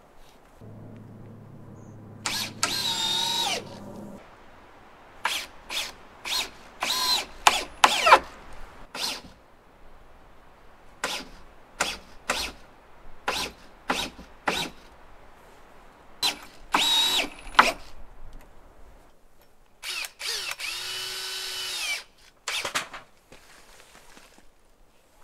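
Cordless drill driving screws into timber in a string of short trigger bursts, a few of them held for a second or two.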